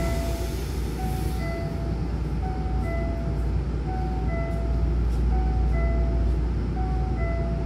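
A two-note electronic chime, a high note then a slightly lower one, repeating about every second and a half, over the steady low hum of a Hankyu train standing at the platform with its doors shut.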